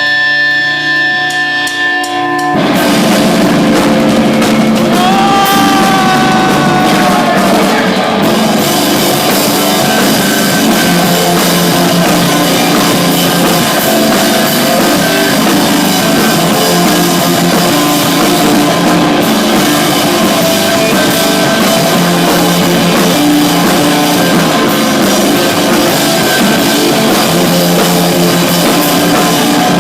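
Loud live rock band music: a held, sustained chord, then the full band with drums comes in about two and a half seconds in and keeps playing.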